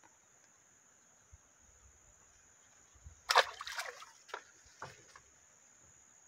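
A loud splash in the pond water at the bank about three seconds in, followed by a few smaller splashes.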